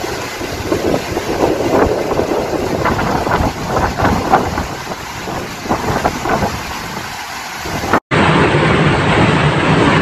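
Typhoon wind and heavy rain, gusting unevenly and buffeting the phone's microphone. About eight seconds in, a cut to another recording brings a steadier, denser rush of wind-driven rain.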